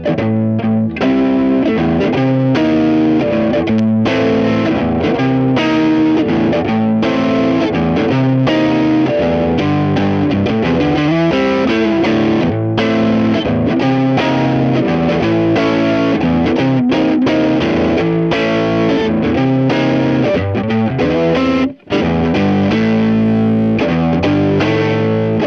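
Electric guitar (a Squier Stratocaster) played through a Kokko overdrive mini pedal into a Peavey BackStage Plus amp: continuous overdriven chords and riffs, with one short break about 22 seconds in.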